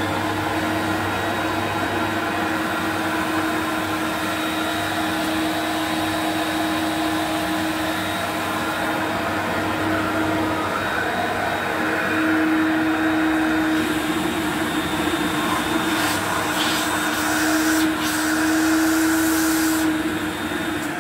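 1991 Electrolux Turbo2 Super (model Z1070) upright vacuum cleaner running steadily on its first switch-on, a constant motor hum and airflow that gets somewhat louder about halfway through and again near the end. It draws suction, but the owner finds it blocked where the lower hose runs down.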